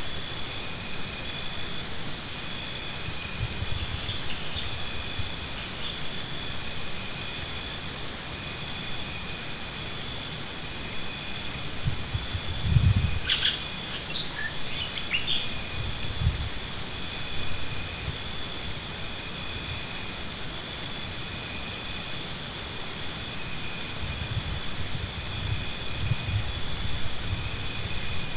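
Insects trilling steadily, high-pitched, in repeated pulsed trains that come and go. A few low thuds sound near the middle.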